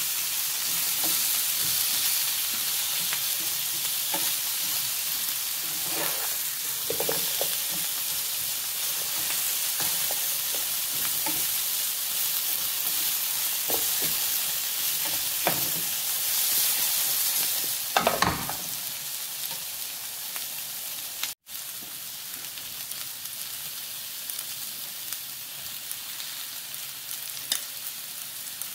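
Sliced carrots, diced potatoes and onion sizzling in oil in a frying pan, with a slotted spatula scraping and turning them now and then and a louder stir about two-thirds of the way in. The sound cuts out for an instant after that, and the sizzle goes on quieter.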